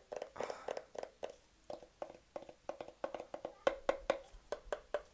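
Fingers tapping rapidly on the top of a small round Bluetooth speaker: a quick string of light taps, several a second, each with a short hollow ring.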